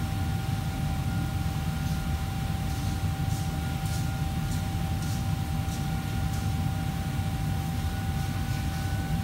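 Steady low machine rumble of commercial kitchen equipment with a constant thin hum above it, and a few light clicks between about two and six and a half seconds in.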